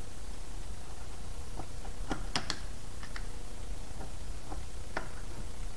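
Utility knife blade trimming around an instrument hole in an aluminium panel: a few sharp ticks as the blade catches and slides along the metal edge, several close together about two seconds in and one more about five seconds in, over a steady low hum.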